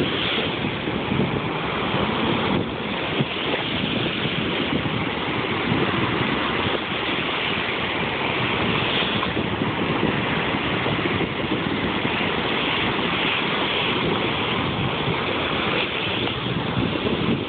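Jet ski running across open water: a steady rush of water and wind buffeting the microphone, with no clear engine note standing out.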